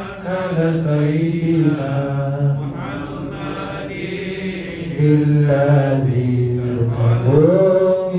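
Islamic salawat chanted in long, drawn-out melodic phrases, the voice holding each note for a second or more and gliding between pitches, with a rising slide near the end.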